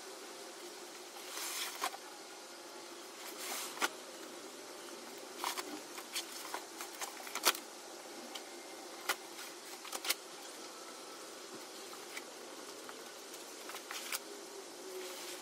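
Scattered soft scuffs, rustles and sharp clicks of a 45 mil EPDM rubber pond liner being unfolded and dragged across a concrete patio, with footsteps, over a faint steady background hum.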